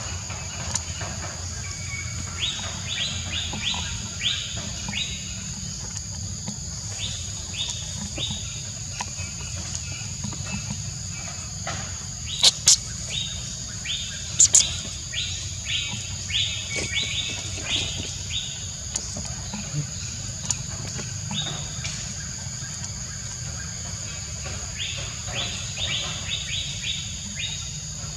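Outdoor natural ambience: a steady high insect drone with runs of quick, evenly repeated chirps from birds or insects. Two pairs of sharp, loud clicks come about halfway through.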